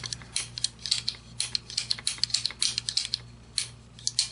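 Hands handling an AR-15 lower receiver close to the microphone: a string of small, irregular clicks and light rubs of fingers against the metal.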